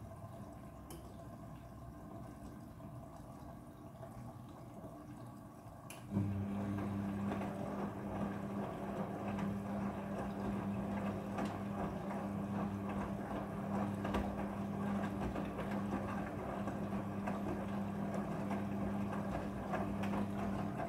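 Midea front-loading washing machine in its prewash cycle. About six seconds in, a steady electrical hum starts abruptly along with the rush of water moving through the machine, and both hold steadily from then on.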